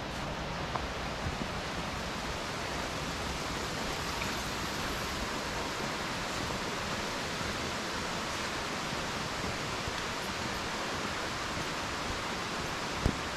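Steady, even rush of a flowing mountain stream. A sharp click sounds near the end.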